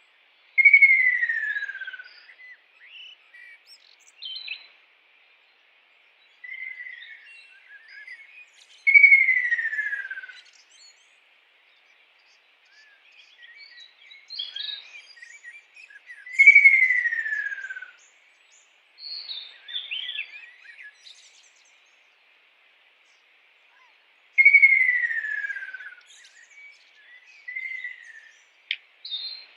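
A kingfisher calling: a loud falling whistle about a second and a half long, given four times roughly every eight seconds. Softer short chirps and notes come between the whistles, over a faint steady hiss.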